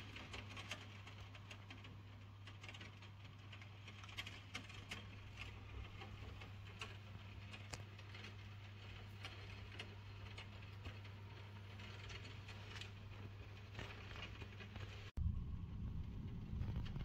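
Rain falling, heard as many small scattered ticks of drops, faint, over a steady low hum. About fifteen seconds in the sound breaks off abruptly and a louder low rumble follows.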